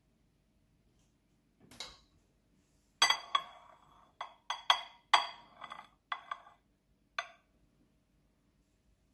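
A glass bowl clinking against a plate as it is set down and shifted into place: about ten sharp, ringing clinks over some four seconds, after a short scrape about two seconds in.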